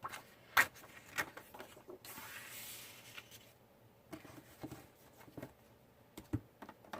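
Scrapbook paper being sorted by hand: a few sharp taps, the loudest about half a second in, a soft rustle of sheets sliding from about two to three seconds in, then scattered light clicks.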